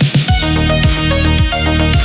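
Instrumental retrowave synth music: a quick drum fill leads, about a third of a second in, into a full beat with a deep synth bass and a kick drum about twice a second.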